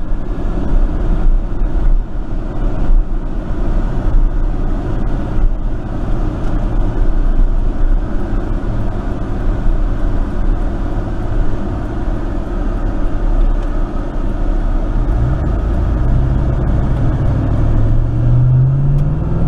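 Inside the cab of a 1999 Chevrolet pickup on the road: steady engine and road noise, then about three-quarters of the way through the engine pulls harder and its pitch climbs steadily as the truck accelerates.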